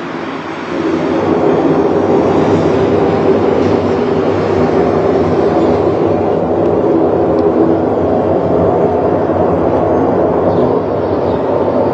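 A loud, steady low drone with a rumbling, train-like quality, swelling up about a second in and holding: one of the recordings circulated as mysterious 'trumpet' sounds in the sky, of unknown origin.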